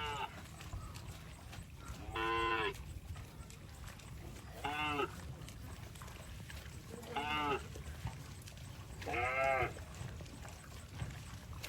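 Cow mooing in short calls, four times about every two and a half seconds, each call rising and falling in pitch, over a steady low rumble.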